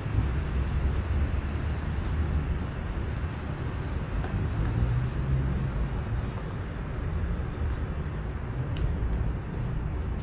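Steady low rumbling outdoor background noise, with a faint click near the end.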